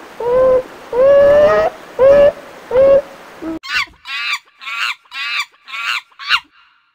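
Five short pitched animal calls, each about half a second long and coming about one a second. About three and a half seconds in, these give way to six rapid bursts of high chirping primate calls, each burst made of quick falling squeaks.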